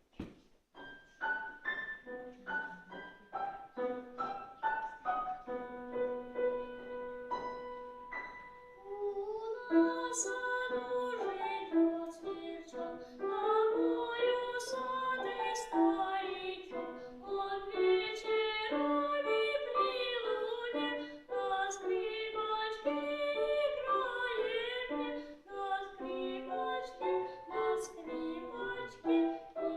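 A piano introduction of spaced chords and held notes. About nine seconds in, a young child's voice starts singing the melody with the piano accompanying.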